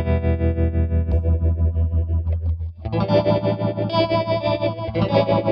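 Electric guitar chords played through an MXR Phase 90 phaser into a Tyler JT22S amp with its tremolo on, the volume pulsing quickly for a Leslie rotary-speaker-like sound. One chord rings until nearly three seconds in, then a new chord is strummed.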